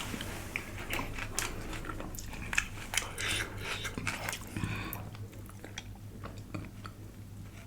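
Close-up mouth sounds of someone eating dal: chewing and wet smacking with many short clicks scattered through.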